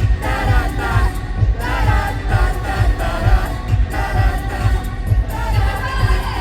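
K-pop girl-group song played loud over a concert PA: high female vocals over a steady, heavy bass beat.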